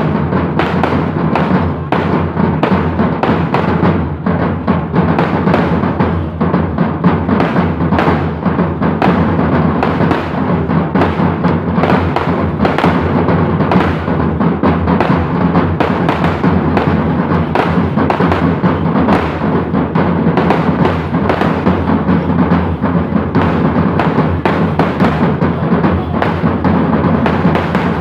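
Kerala temple-festival percussion ensemble drumming loudly and without a break, with dense, rapid strokes.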